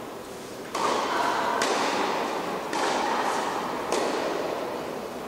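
Tennis balls being struck by rackets in a rally, with several sharp hits about a second apart.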